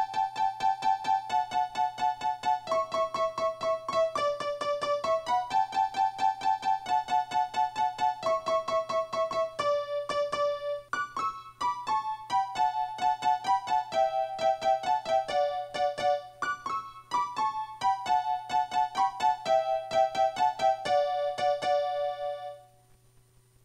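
Instrumental music: quick repeated notes, about four a second, moving through a shifting two-note pattern over a faint low hum, stopping near the end.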